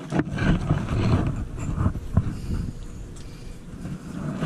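Wind buffeting the camera microphone in gusts, a rough, uneven rumble that comes in suddenly, is loudest in the first two seconds and eases off after about three.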